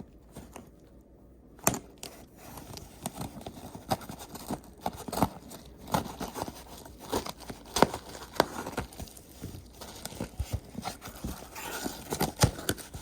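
A package being torn and opened by hand: crinkling and tearing with many irregular small clicks and knocks. It starts with one sharp click after a quieter second or so, then the handling runs on steadily.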